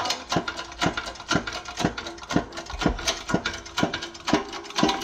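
Hand-pumped hydraulic press being pumped in steady strokes, with sharp clicking about twice a second and a faint squeak, as it slowly presses a new front wheel bearing into the steering knuckle.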